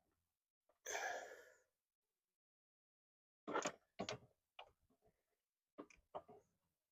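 A long exhaled sigh about a second in, then a handful of short, sharp knocks and clicks.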